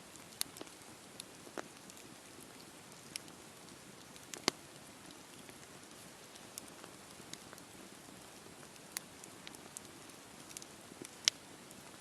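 Wood campfire burning: a steady low hiss with irregular sharp crackles and pops, the loudest about four and a half seconds in and again near the end.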